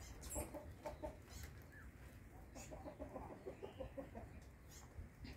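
Chickens clucking faintly in a short run of quick repeated notes, mostly in the middle of the stretch, over a low steady background.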